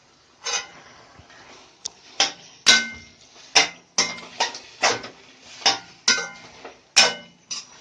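A metal stirring spoon clanking against a cooking pan while mutton fry is stirred as it dries out: about a dozen sharp knocks with a brief ringing tone, coming faster after the first couple of seconds.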